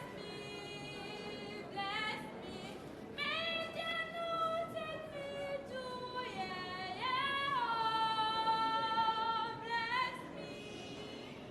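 A high female voice singing a slow melody, sliding up into long held notes; the longest is held for over two seconds before ending near the end.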